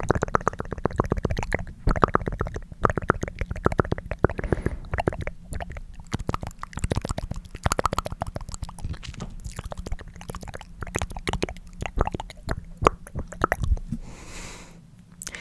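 Close-miked tongue clicking: rapid, wet clicks of the tongue in the mouth, coming in quick irregular runs. A short soft hiss, like a breath, comes near the end.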